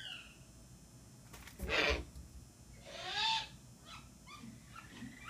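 Ural owl giving short calls: a rasping screech about two seconds in, a rising-then-falling squeal about a second later, then a few softer short notes.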